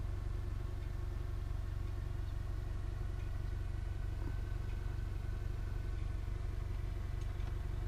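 A steady low engine hum, with a few faint steady tones held above it, running evenly without change.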